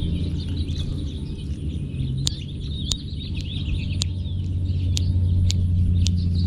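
Birds chirping over a steady low rumble, with sharp clicks about every half second to second.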